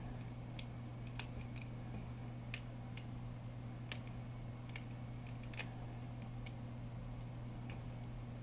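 Scattered, irregular sharp clicks and small cracks from a small prying tool working a glued LCD panel away from a cracked phone digitizer glass, over a steady low hum.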